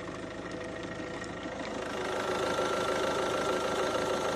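Ford C-Max 1.6 TDCi four-cylinder diesel engine running steadily, fully warmed up with its coolant circulating during a flush. It grows somewhat louder about two seconds in.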